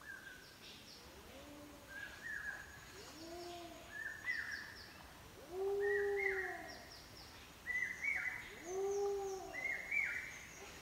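Birds calling: short high chirps and quick rising notes repeating every second or two, with a lower, drawn-out arching call a few times.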